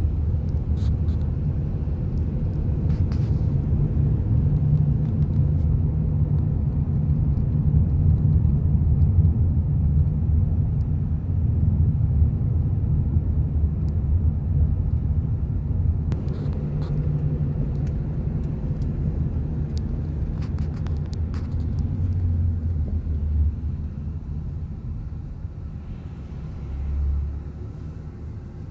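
Steady low road and engine rumble of a moving car heard from inside the cabin, easing off over the last few seconds.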